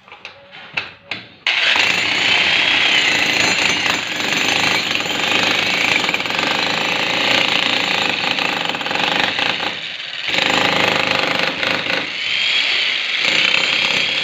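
A few clicks, then a power tool starts about a second and a half in and runs steadily with a high whine over it. It lets up briefly twice near the end.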